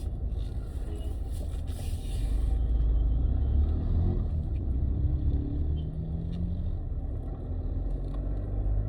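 Mahindra Scorpio-N diesel SUV on the move: low engine and road rumble that swells about two and a half seconds in and eases back about a second and a half later.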